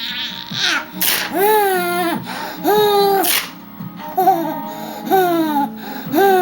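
A small child laughing hysterically in repeated high, sing-song squeals, about one a second. Short crinkly rips of a protective plastic sheet being torn at on a laptop come about a second in and again around three seconds in.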